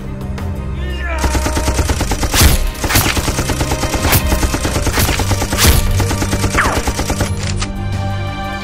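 Rapid automatic gunfire, starting about a second in, with several louder single shots standing out, over steady background music.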